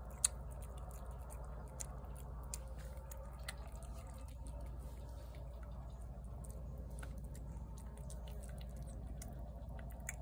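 A cat eating shredded wet food from a plate: irregular, wet clicking of chewing and lapping over a low, steady background hum.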